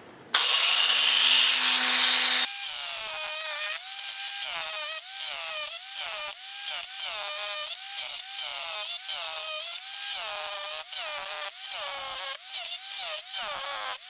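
Angle grinder running a homemade hammer-chisel attachment, its chisel bit hammering rapidly into a concrete curb and breaking it up. It starts abruptly just after the beginning. After about two seconds, the motor's whine rises and falls about once a second under the rapid chatter of the chisel blows.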